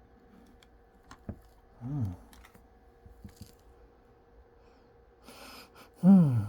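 A person's short wordless hums, one about two seconds in and a louder one near the end that falls in pitch, with a few faint computer mouse clicks about a second in.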